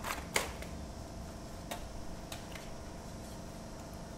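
Knife knocking against a whole pig carcass and the tarp while it is being dressed: two sharp knocks close together at the start, then a few fainter taps, over a steady low hum.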